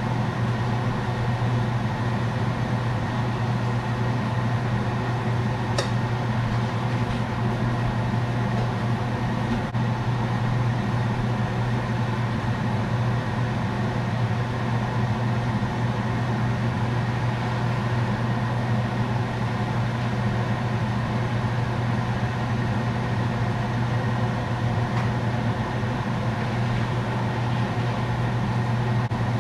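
A household appliance motor running with a steady, even hum and a low drone; a faint tick about six seconds in.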